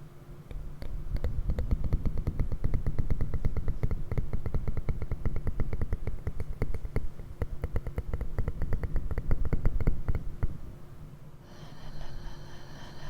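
Fast, even tapping close to the microphone, many small strokes a second, for about ten seconds before it stops. Near the end a different steady hiss with several high tones starts.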